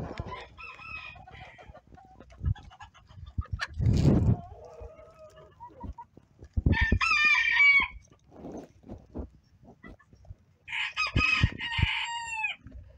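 Backyard chickens calling, with roosters crowing twice, about seven seconds in and again near the end, the second crow trailing off downward, over scattered clucking from the hens. A brief loud rumble of noise comes about four seconds in.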